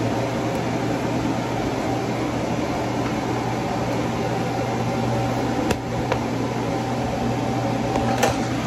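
Steady machine hum with a low drone, as of a running fan, with two faint clicks: one about six seconds in and one near the end.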